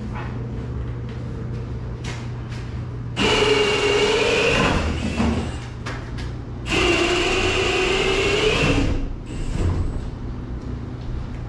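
Milwaukee cordless drill running against an overhead wooden joist in two bursts of about one and a half and two seconds, a steady motor whine that wavers slightly under load.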